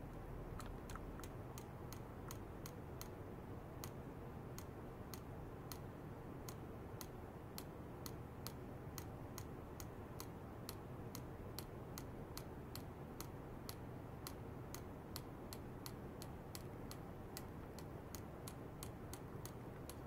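Regular ticking, about two to three sharp clicks a second, starting about half a second in, over a steady low hum.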